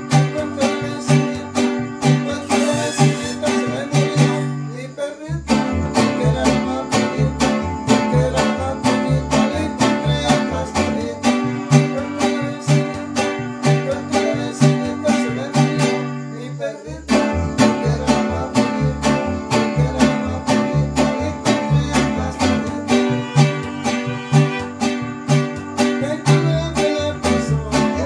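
Plucked-string band music: guitars strummed in a fast, even rhythm over a low bass line, with two brief breaks, about five and seventeen seconds in.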